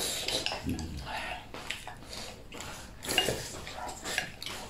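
Wooden chopsticks tapping and scraping against a bowl in a run of short, irregular clicks as food is shoveled from it while eating.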